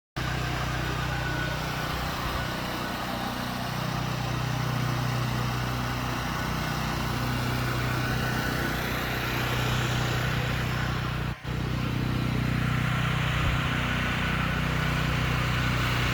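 An engine running steadily, with a brief break about eleven seconds in.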